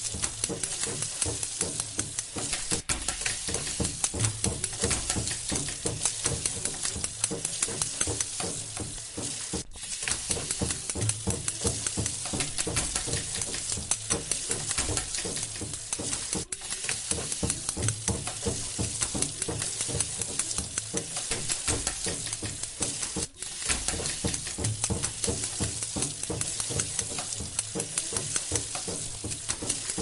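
Dense, steady crackling noise made of many fine clicks, briefly cutting out three times.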